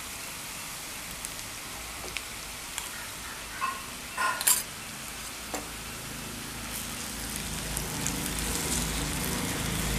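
Onions sizzling in hot oil in a kadai as ginger-garlic paste is added. A steel spoon clinks against the pan a few times about four seconds in, then a wooden spatula stirs, and the sizzle grows louder toward the end.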